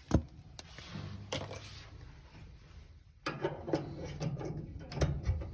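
Knocks and clatter of clothes dryer panels and parts being handled during reassembly: a sharp knock just after the start, a few clicks, then busier rattling from about three seconds in.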